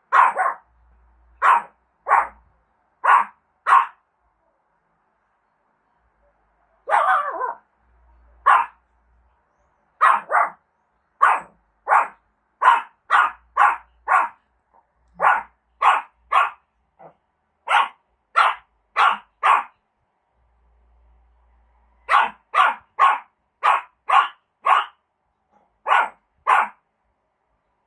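Small Shih Tzu-type dog barking in short, sharp single barks, about one to two a second, in runs broken by pauses of a few seconds. About seven seconds in there is one longer, rougher bark.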